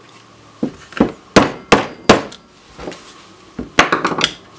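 A metal pin being tapped into the polymer frame of a Smith & Wesson M&P 10mm pistol with a punch, about six sharp taps in quick succession. A quick cluster of knocks follows near the end as the pin seats and the tools are handled.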